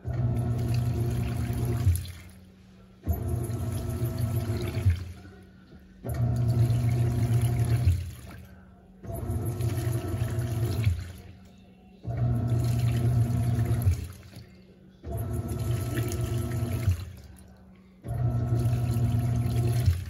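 Panasonic NA-F140B6 top-loading washing machine agitating a soapy, soaked load: the motor hums and water sloshes for about two seconds, then stops for about a second. The pattern repeats every three seconds. This is the wash stage's agitation, ahead of the soak.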